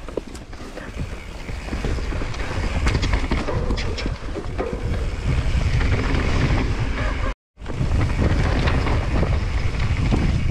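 Specialized Stumpjumper Evo full-suspension mountain bike descending a dirt downhill trail at speed: wind buffeting the camera microphone with a heavy low rumble, tyres rolling over dirt and roots, and the bike rattling with many sharp clicks and knocks. The sound cuts out completely for a moment a little past seven seconds.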